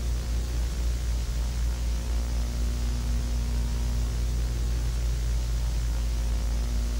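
Steady static-like noise: a deep low rumble with hiss above it and a faint constant hum, unchanging, with no speech.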